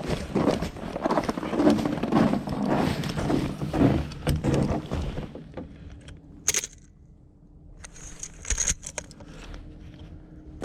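Footsteps and rustling handling noise, loud and irregular, then a quieter stretch broken by a few sharp clicks.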